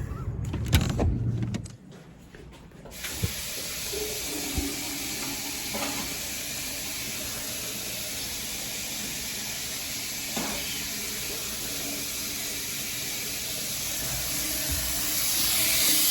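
A few knocks, then about three seconds in a tap comes on and water runs steadily into a sink, growing louder near the end.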